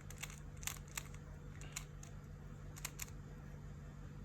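Plastic Rubik's cube layers being turned by hand: a scattering of light, irregular clicks over a low steady hum.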